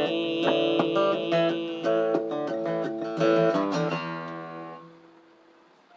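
Acoustic guitar playing the closing picked notes of the song, ending on a final chord that rings out and fades away about five seconds in.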